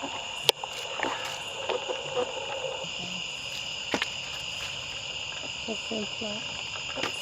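Steady chorus of insects such as crickets, a constant high-pitched trilling, with two sharp clicks, about half a second in and at four seconds.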